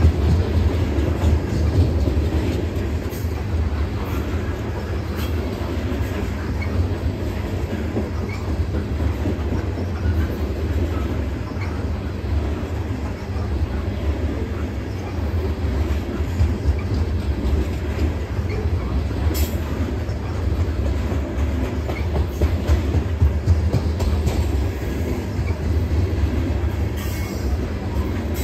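Freight train of covered hopper cars rolling steadily across a steel girder railroad bridge: a continuous low rumble of steel wheels on the rails, with one sharp knock about two-thirds of the way through.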